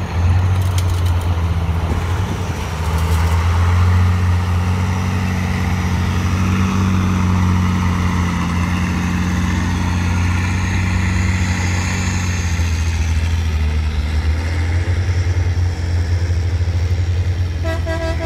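Competition trial truck's engine working hard as the truck pushes through deep mud and climbs a bank, running steadily with small rises and falls in pitch. Near the end a short pulsing tone sounds.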